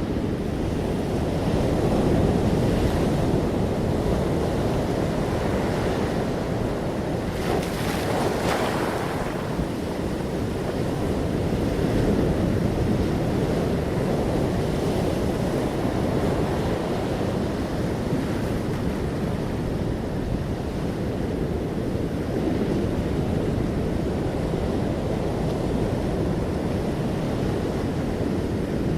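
Sea waves washing continuously onto a shore, a steady surf rush that swells and eases, with one brighter hissing surge about eight seconds in. Wind noise on the microphone runs under it.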